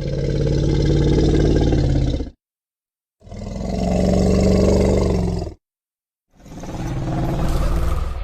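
Monster roar sound effect, mixed from Predalien, Plateosaurus, Tiktaalik and wolf calls: three long, low, rough roars, each two to three seconds, with brief silences between them.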